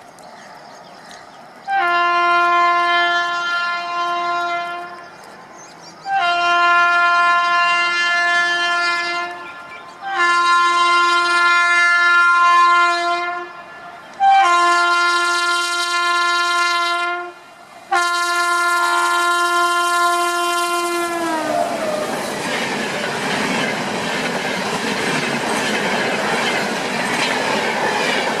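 Indian Railways locomotive horn sounding five long blasts in a row, the last one dropping in pitch as it ends. It gives way to the steady rumble and clickety-clack of the train running along the track.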